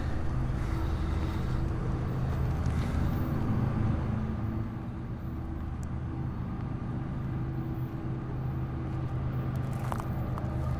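Freight train passing: a steady low rumble with a droning hum, easing a little midway, and a few sharp clicks near the end.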